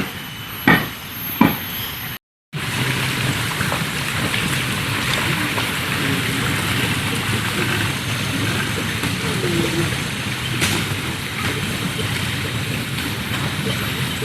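Steady rushing of water, after three sharp thumps at the very start and a brief cut in the sound about two seconds in.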